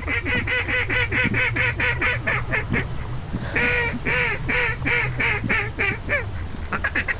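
Loud duck quacking in quick, evenly spaced runs of about four or five quacks a second, each quack dropping in pitch. A short break comes about three seconds in and another near the end. A steady low rumble runs underneath.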